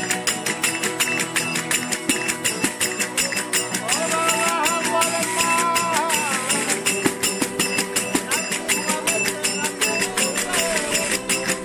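Verdiales folk band playing live: guitars strummed in a fast, steady rhythm with small brass hand cymbals and a tambourine clashing on every stroke. A man's voice comes in with a long sung line about four seconds in, and sings again near the end.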